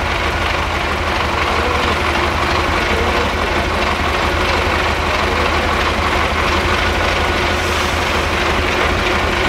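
Trial truck's diesel engine running steadily at low revs as the 6x6 truck creeps down a steep dirt slope.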